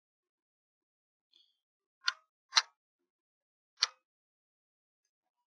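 A faint tick, then three short, sharp clicks spread unevenly over the next two and a half seconds. The middle click is the loudest, and there is nothing else between them.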